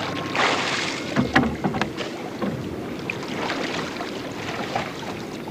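Water splashing and sloshing as a scuba diver surfaces beside a boat and hauls himself aboard, with a few sharp knocks of gear against the boat. Under it runs a steady rush of wind and sea.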